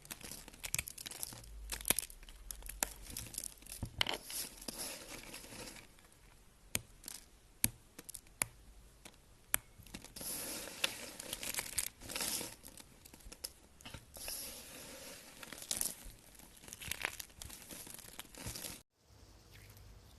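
Crisp crackling and crinkling with many sharp clicks, as a crunchy material is squeezed, crumbled or cut up close. Near the end the sound cuts off abruptly and a softer, quieter sound follows.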